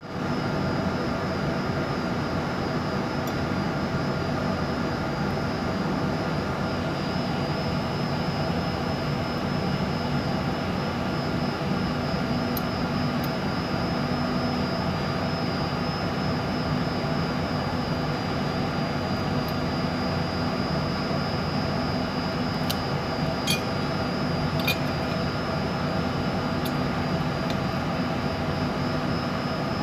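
Steady mechanical drone of running machinery with a few faint hums at fixed pitches in it. A few light clicks come about two-thirds of the way through.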